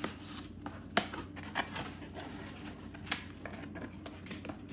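Cardboard box and plastic packaging being handled and opened by hand: scattered crackles and light taps, the sharpest about a second in and another about three seconds in.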